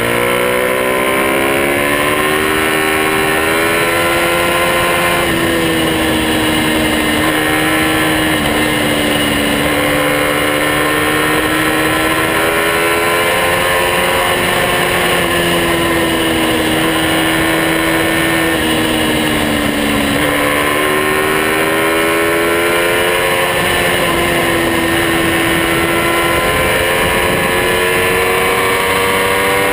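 Small minibike engine running hard and close, its pitch climbing as it accelerates and then dropping in steps at each gear change, several times over.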